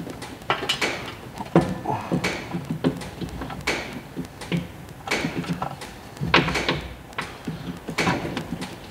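Irregular metallic clicks, knocks and scrapes of hand tools being fitted and worked on a tractor's fuel filter in a cramped space.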